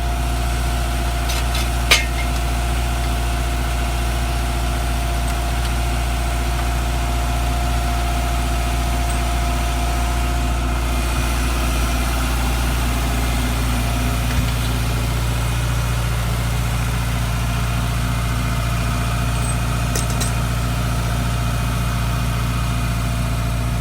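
Subaru engine idling steadily, with one sharp click about two seconds in.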